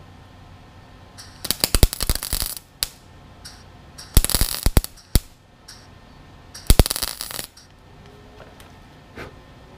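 Wire-feed welder laying short welds on a steel patch panel in a windshield frame: three crackling bursts of arc, each under a second long, a couple of seconds apart.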